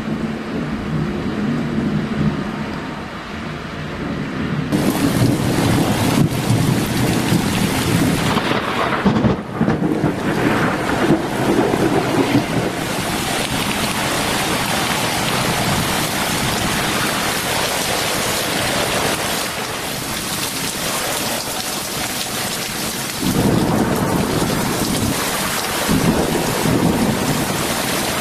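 Severe thunderstorm: a torrential downpour hisses steadily, with low rolling thunder that swells about five seconds in and again near the end.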